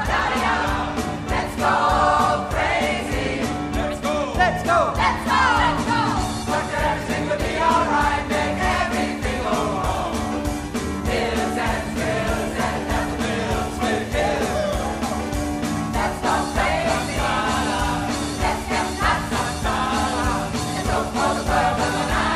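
Pop choir singing in several parts with a live band of keyboard, bass and drums, the drums keeping a steady fast beat under the voices.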